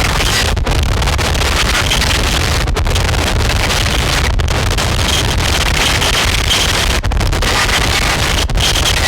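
Harsh noise from a chain of distortion and fuzz effects pedals, including Death By Audio pedals and a BOSS Metal Zone. It is a loud, dense wall of hissing, rumbling noise, cut by very brief dropouts about five times.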